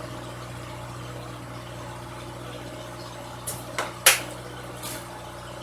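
Engine idling steadily with an even low hum. A few sharp clicks or knocks come a little past three seconds in, the loudest about four seconds in.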